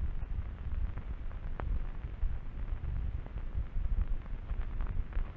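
Low, steady rumble with faint hiss and a few light clicks: the background noise of an old film soundtrack, with no distinct sound of its own.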